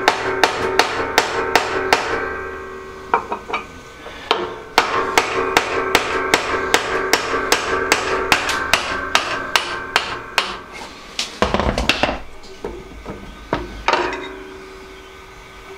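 Hammer striking a drift to knock a shaft out of a Harbor Freight horizontal metal bandsaw's gearbox: quick runs of blows, about three a second, each leaving a metallic ring. A pause splits the runs, and near the end come a few scattered knocks and a low rumble of handling.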